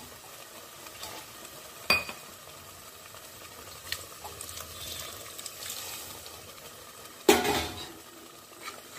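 Steel vessel clinking against a pressure cooker as thin ground masala is poured into the simmering curry, over a faint sizzle. There is one sharp clink about two seconds in and a louder clatter of metal on metal near the end.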